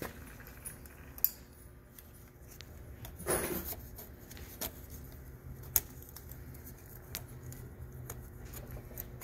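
Snap ring pliers and a steel retaining clip clinking and clicking as the clip is worked into place on a pump shaft against the lower bearing. Two sharper clicks come about a second in and just before six seconds, and a short scrape comes about three seconds in.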